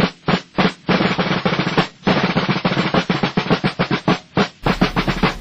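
Snare drum playing a fast, rhythmic cadence of quick strokes and rolls.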